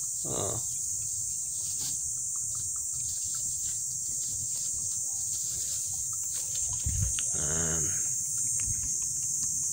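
Steady, high-pitched chorus of insects in the surrounding vegetation, with two short, low vocal sounds, one about half a second in and one near the end.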